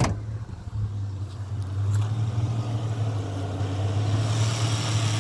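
Ford Falcon AU ute engine idling steadily through a 2.5-inch exhaust, a low, even hum. A sharp click at the very start.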